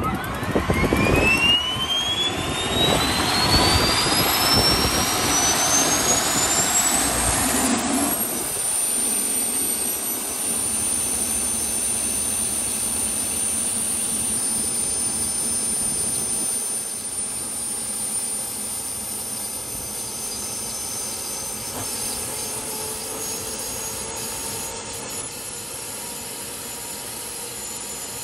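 International Harvester HT-340 tractor's small gas turbine spooling up: a whine rises steeply in pitch over about eight seconds over a loud rumble. It then settles into a steady, very high-pitched jet-like whine at running speed, with the rumble gone.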